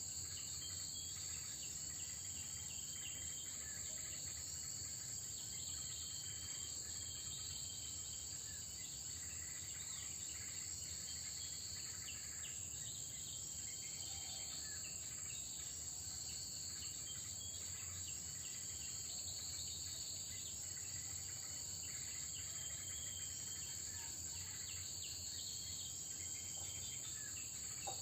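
Insect chorus: steady high-pitched trilling that runs without a break, with scattered faint short chirps beneath it.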